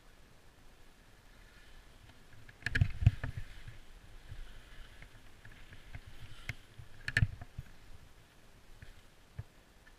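Skis sliding and scraping over packed snow, heard muffled, with sharp knocks and clatters in a cluster about three seconds in and again about seven seconds in.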